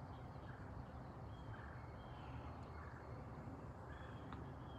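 Faint steady outdoor background noise with a few short, distant bird calls scattered through it.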